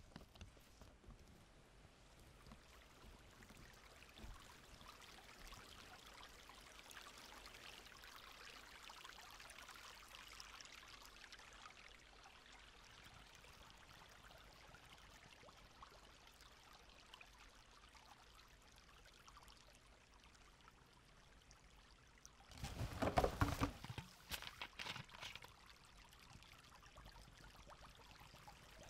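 A small forest stream trickling faintly and steadily. About three-quarters of the way through, a couple of seconds of louder, irregular splashing in the water.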